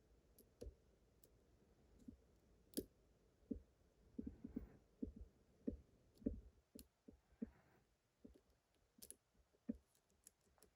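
Faint, irregular metallic clicks and taps of a lock pick and tension tool working the pins of a pin-tumbler lock, about fifteen scattered ticks with the densest run around the middle.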